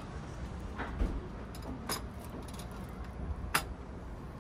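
Steady low rumble of a moving train carriage, with a few light clicks and clinks from a tray carrying a teacup, saucer and spoon as it is carried and set down on a table. The sharpest click comes about three and a half seconds in.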